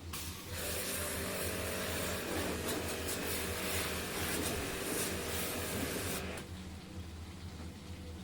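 A jet of water spraying, starting about half a second in and cutting off about six seconds in, over a steady low motor hum.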